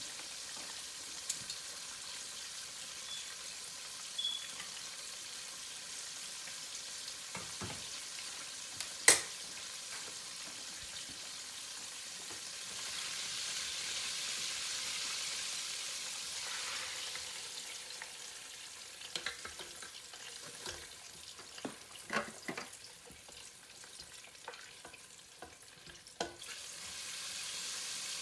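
Chicken wings frying in hot oil: a steady sizzle with scattered sharp pops and clicks, the loudest about nine seconds in. The sizzle swells for a few seconds in the middle.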